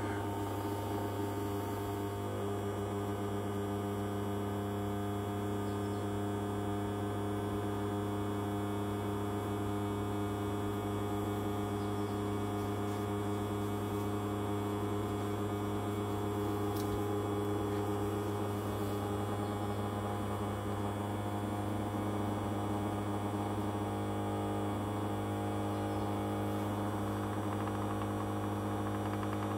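Small countertop ultrasonic cleaner running: a steady low hum with a row of fainter higher tones above it.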